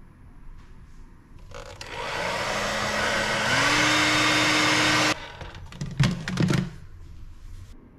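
A Panasonic hair dryer is switched on and blows, its motor whine stepping up in pitch partway through, then cuts off abruptly. A few knocks follow as the dryer is set down into its plastic mesh holder.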